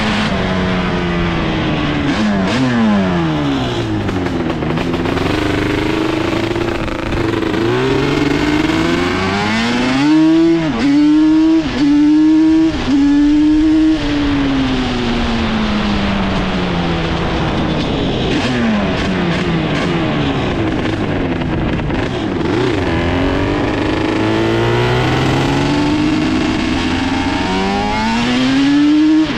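Yamaha Banshee's twin-cylinder two-stroke engine under riding, its note rising and falling with the throttle. The engine is held high with several brief throttle cuts about ten to fourteen seconds in, and climbs again near the end.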